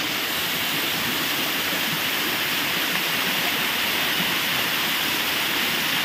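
Waterfall pouring down a rock face close by: a steady, even rush of falling water.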